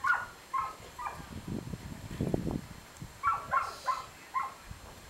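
A collie giving short, high yelps in quick runs, three in the first second and four more about three seconds in, with soft scuffling between them.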